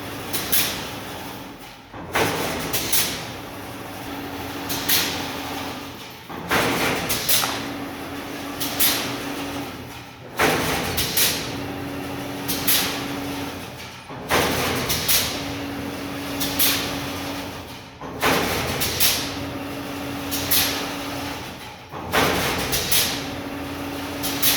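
Fully automatic chain link fence weaving machine running through its cycle, which repeats about every four seconds: sharp metal knocks and rattling, a steady hum lasting a second or so midway, then a short drop before the next cycle.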